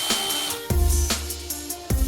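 Background music with a deep bass line and sharp drum hits.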